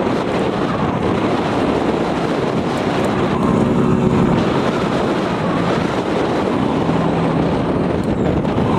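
Fishing boat's engine running steadily under way, nearly drowned by heavy wind noise on the microphone.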